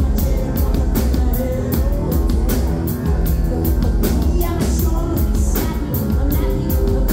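Live rock band playing loud: electric bass and a drum kit with steady cymbal and drum hits, with singing over the top.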